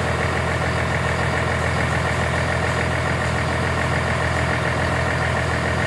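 Engine of a crane truck running steadily, an even low hum with no change in speed.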